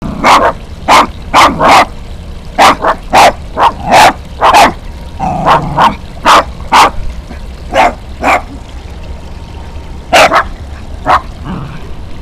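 Small long-haired dog barking repeatedly: about twenty sharp, short barks in irregular clusters.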